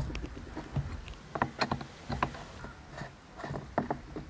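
Irregular light clicks and knocks of hard plastic as the StarQ W3 pressure washer's plastic casing is handled and pulled apart by hand.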